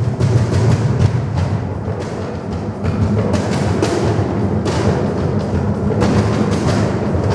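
Several players hand-drumming together on a large hexagonal wooden cajon table, a dense, continuous percussion groove of low thumps and sharper slaps on the wood.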